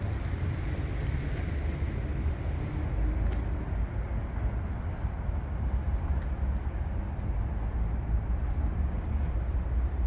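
City street ambience: a steady low rumble of traffic, with no distinct events standing out.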